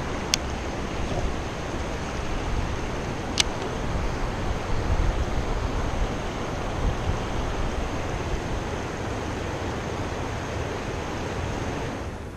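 Steady rush of a shallow river flowing over stones, with wind rumbling on the microphone. Two short sharp clicks come, one just after the start and one about three seconds later.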